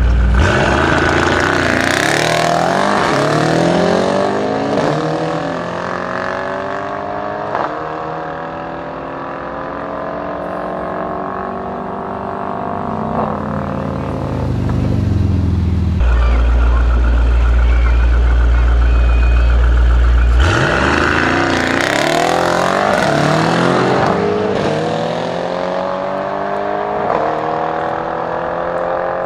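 Two drag-race launches from a standing start. Each time a tuned Mercedes-AMG E63 S twin-turbo V8 and a rival car accelerate flat out, their revs rising and dropping with each upshift as they pull away. Between the runs there is a low idling rumble at the line, and the second launch comes about two-thirds of the way through.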